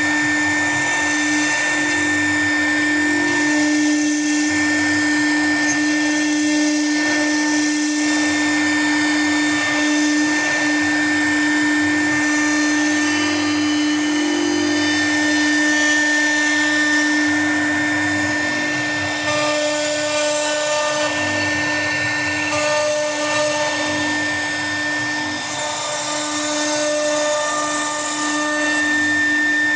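CNC router spindle running with a steady high whine while its bit carves a relief pattern into a board. The hiss of cutting swells and fades as the bit moves through the work.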